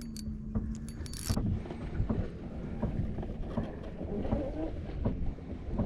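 Scattered knocks and handling noises in a fishing boat over a low wind rumble on the microphone, with a steady low hum for the first second or so.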